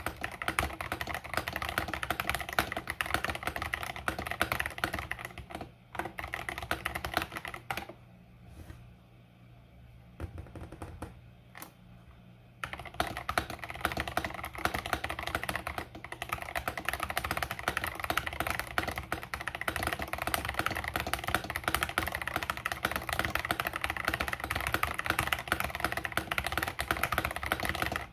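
Fast typing on an 8BitDo Retro Mechanical Keyboard with KTT Strawberry linear switches: a rapid, continuous clatter of keystrokes. About eight seconds in it thins to a few scattered keystrokes, then resumes at full speed about four seconds later.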